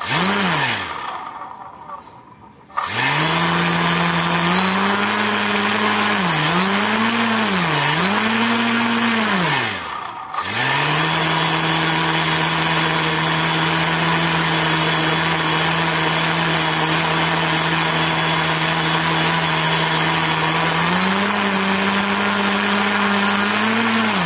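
Brushless outrunner motor spinning a propeller under radio-control throttle, a whine over rushing air that follows the throttle stick. There is a short blip at the start, then it runs up, dips twice and cuts out about ten seconds in. It restarts at a steady speed, steps up a little near the end and spins down.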